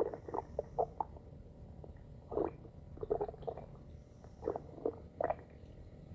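Stomach growling: a dozen or so short, irregular gurgles and squelches, coming in small clusters with quieter gaps between.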